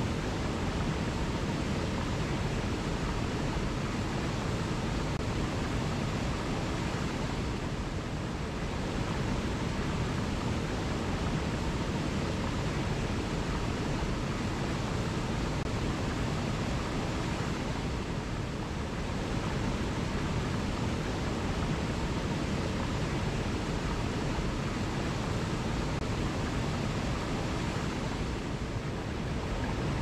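Small waterfall and stream rushing over boulders: a steady, even rush of water.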